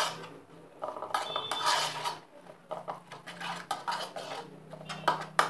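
Metal spoon stirring a sauce in a bowl, with irregular clinks and scrapes against the bowl's sides.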